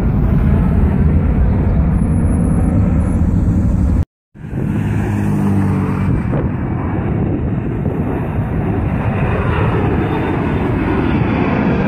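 Jet engine noise from twin-engine airliners climbing overhead. A heavy, steady rumble cuts off abruptly about four seconds in, then a second flyover follows as a rushing jet sound whose tone sweeps and shifts as the aircraft passes.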